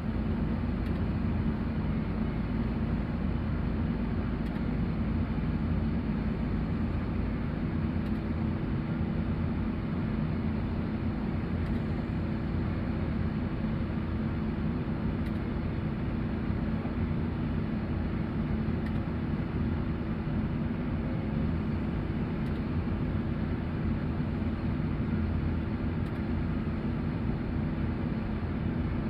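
XCMG excavator's diesel engine running steadily: an even low drone with a held hum and no breaks or sharp knocks.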